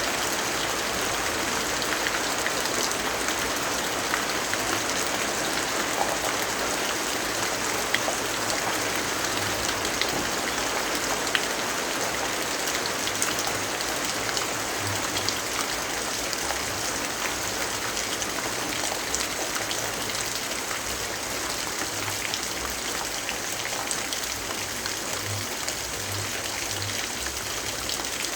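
Steady rainfall, an even hiss dotted with the ticks of individual drops striking close by.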